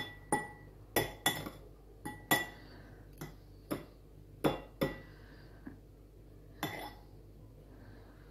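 Metal fork clinking against a small bowl of egg white as dough balls are dipped and lifted out: about a dozen irregular clinks, some with a short ring.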